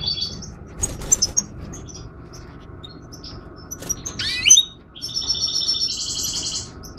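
European goldfinches calling in an aviary cage: rapid, high trilled chirps, with a quick rising call about four seconds in and two trills overlapping near the end. A few light clicks about a second in.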